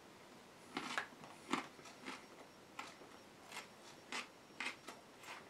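Metal fork clicking and scraping in a black plastic microwave-dinner tray as food is scooped up: a run of short, faint scrapes about every half second to second, starting about a second in.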